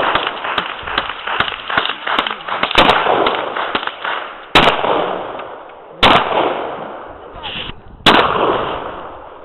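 AR-15 rifle firing .223: a fast string of shots in the first few seconds, then three single shots a second or two apart. Each shot is followed by a long, fading echo.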